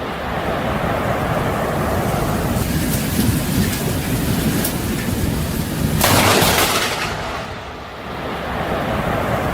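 Thunderstorm: a steady loud rush of storm noise, then a sudden thunderclap about six seconds in that rumbles away over the next two seconds.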